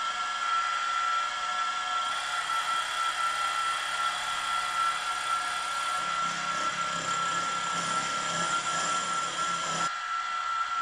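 Milling machine spindle running with a steady high whine as a small drill bit drills the steam holes into a cylinder block. A rougher cutting noise joins about six seconds in and drops away shortly before the end.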